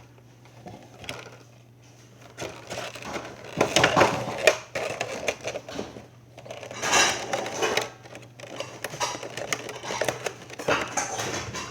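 Cardboard figure box being handled, rustling, scraping and clicking in several bursts, loudest about four seconds in and again about seven seconds in.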